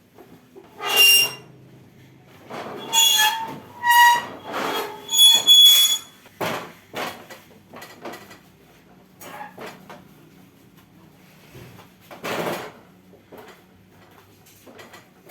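Several short, high squeaks in the first half, followed by scattered light knocks and rustles of handling.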